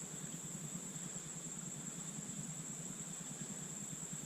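A steady, high-pitched insect chorus of crickets or similar insects, with a low, even rush beneath it.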